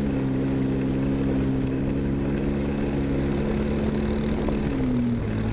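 Polaris RZR side-by-side engine running at a steady speed, with a brief drop in revs near the end before it picks up again.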